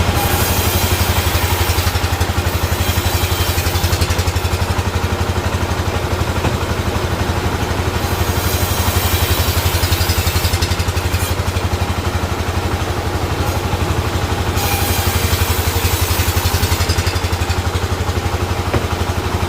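Sawmill machinery running with a steady engine-like drone and a fast, even pulse. A high hiss comes and goes in stretches of a few seconds.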